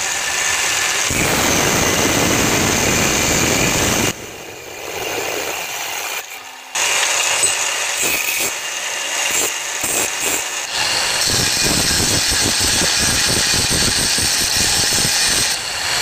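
Angle grinder with an abrasive disc cutting through a steel rod and then grinding down its end: a steady high whine with a rasping grind. About four seconds in it drops to a quieter stretch for roughly two and a half seconds, then comes back at full level.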